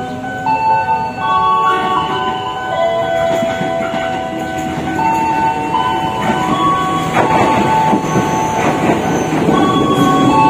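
KAI Commuter 6000-series electric multiple unit passing, its wheels clattering over the rails about two-thirds of the way in, with sustained tones that shift in pitch.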